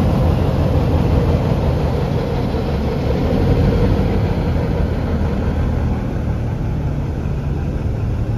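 Metropolitan-Vickers/Beyer Peacock XA-class diesel locomotive with its Crossley two-stroke V8 diesel engine running as it rolls slowly past. A low, steady rumble that fades a little as the locomotive moves away.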